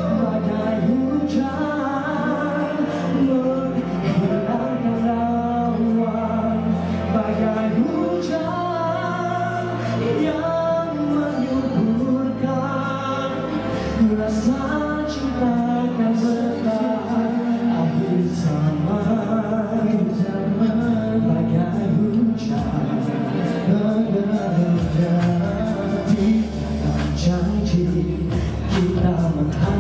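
Male vocalists singing a song into handheld microphones over instrumental accompaniment with held bass notes.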